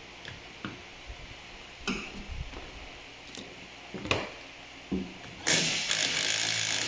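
A few light clicks and knocks of a socket being fitted, then about a second and a half of a cordless impact wrench running as it spins off the 15 mm nut that holds a wiper arm.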